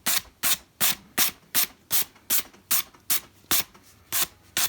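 Hand sanding on a foam model airplane: quick, even back-and-forth strokes, about three a second, scuffing the foam's surface to knock down high points and take the shine off before filler goes on.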